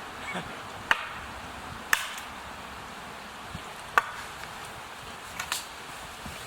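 Wood being chopped for a campfire: three sharp strikes, the second about a second after the first and the third about two seconds later, then a couple of lighter knocks near the end.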